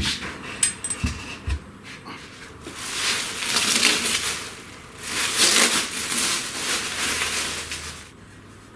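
Heavy kit parts being handled in their packaging: a few knocks and dull thumps, then two long stretches of rustling and scraping of packing material.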